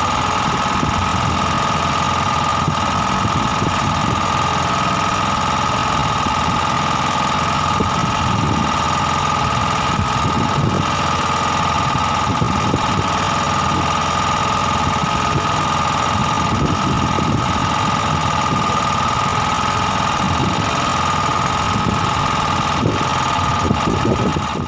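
A small engine running steadily at idle with a knocking beat, and a constant high whine over its low rumble.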